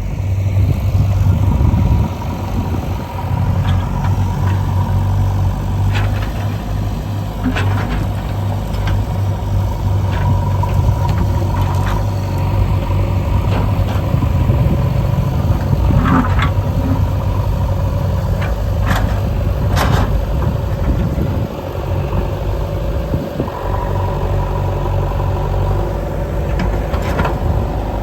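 Engine running steadily, with scattered sharp clanks and knocks over it.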